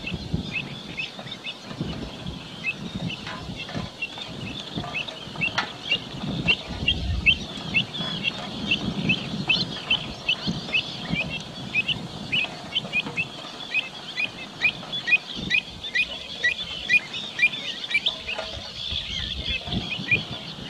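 Kentish plovers calling: short, high chirping calls repeated rapidly and overlapping, several a second, with a low rumble of wind on the microphone underneath.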